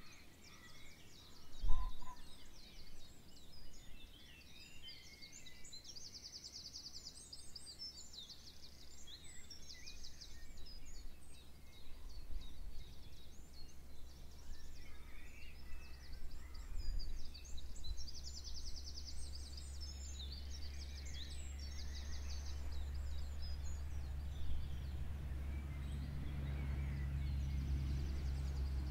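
Songbirds singing and calling, with several fast, high trills. A sharp knock about two seconds in, and a low steady hum that builds through the second half.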